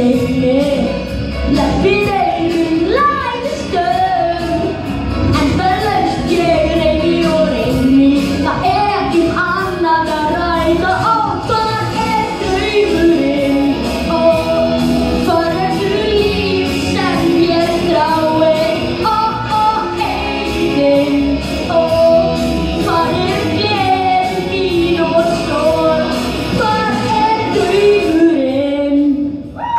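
A child's voice singing a melody into a microphone over an amplified pop backing track with a steady beat. The music stops abruptly near the end.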